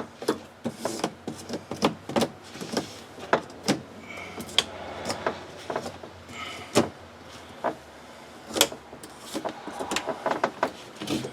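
Irregular light clicks and clinks of broken side-window glass being handled and picked out from inside a car door.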